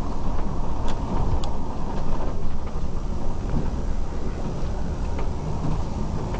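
Steady low rumble of a moving vehicle heard from inside, with a faint steady hum and a couple of light clicks about a second in.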